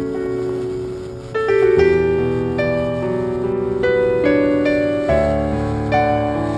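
Background piano music: slow, gentle melody over sustained chords, with deeper bass notes joining about two seconds in and again near the end.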